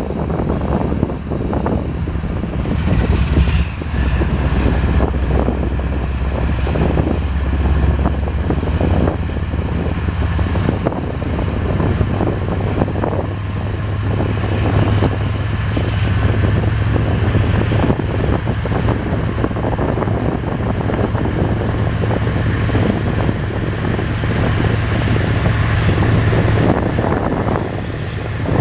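Two GE Evolution-series diesel-electric freight locomotives pulling a long train away from a stop, their engines running under load with a low steady rumble. The engine note rises about halfway through as they throttle up. A brief hiss comes about three seconds in.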